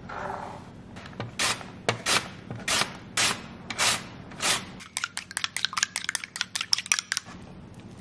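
Food preparation with kitchen utensils in a bowl: about seven separate scraping strokes roughly half a second apart, then a quick run of light clicks for about two seconds.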